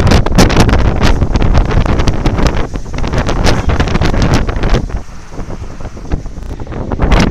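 Strong wind buffeting the camera microphone in loud, irregular gusts, easing about five seconds in and picking up again near the end.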